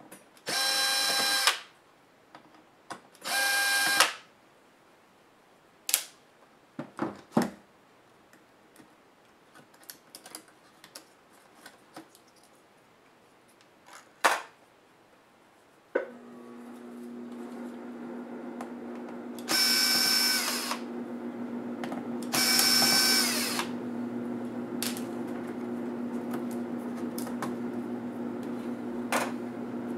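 Cordless electric screwdriver whirring briefly twice as it backs out laptop case screws, followed by scattered clicks and taps of small parts being handled. About halfway through, a steady low hum comes on and keeps going, with two more short screwdriver whirs over it.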